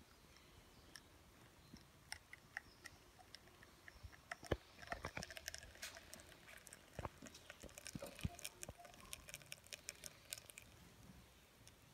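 Faint, irregular pattering and crackling as a thin stream of espresso from an Elektra Microcasa lever machine's portafilter drips and splashes into a small cup. The clicks come thickest in the middle stretch, then thin out near the end.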